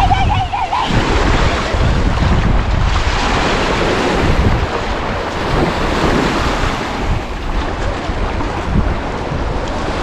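Waves breaking and washing up a sandy beach, with wind buffeting the microphone in a steady low rumble.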